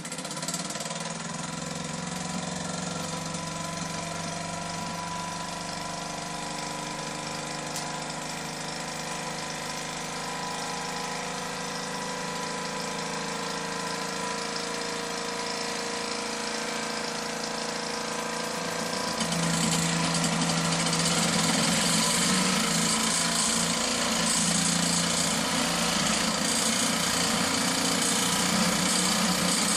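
Small toy steam engines running with a steady, rapid mechanical chatter and a hiss of steam. About two-thirds of the way in the sound gets louder and hissier, as a second engine gets going.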